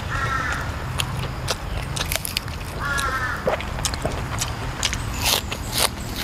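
Crisp raw vegetables being snapped, torn and crunched while eating, a run of sharp cracks that is loudest near the end. Two short animal calls come through, one at the start and one about three seconds in.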